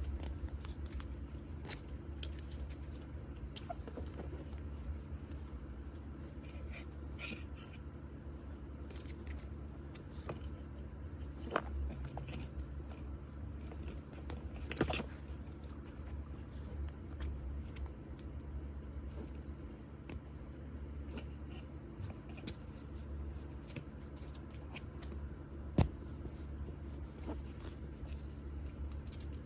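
Hands unpacking an Apple Watch Ultra and its packaging: scattered small clicks, taps and brief scrapes of cardboard, plastic and the watch parts, a few sharper clicks standing out, over a steady low hum.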